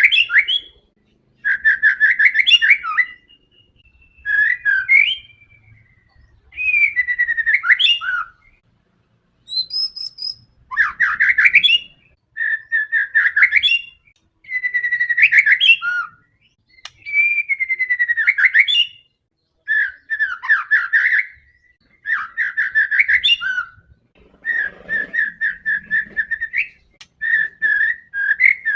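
White-rumped shama (murai batu) singing loudly in full, fierce song: a string of varied phrases about a second or two long with short pauses between, built from fast chattering trills and a few gliding whistles.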